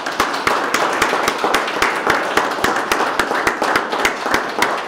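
People applauding, with a few nearby hand claps standing out sharply over the steady clapping of the rest.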